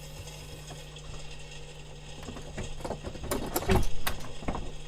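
Mechanical clattering and knocking from a G550 cabin training simulator, building from about two seconds in over a steady low hum.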